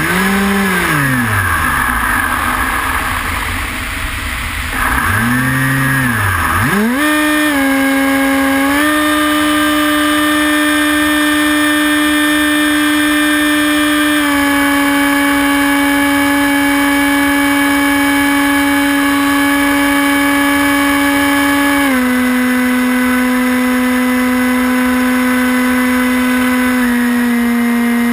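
Electric motor and propeller of a Hawk Sky RC plane, heard from the onboard camera over the rush of wind. The pitch rises and falls twice in the first seven seconds as the throttle is worked, then settles into a steady whine that drops in a few small steps.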